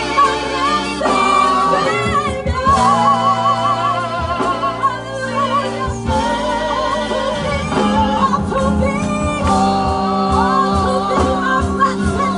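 Live gospel singing: a woman's lead voice with wide vibrato, joined by other voices on microphones, over instrumental backing that holds low notes. Steady low beats come in about halfway through.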